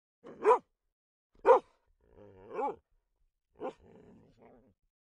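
A dog barking: a few short, separate barks about a second apart, the loudest and sharpest about one and a half seconds in, with softer low sounds after the last.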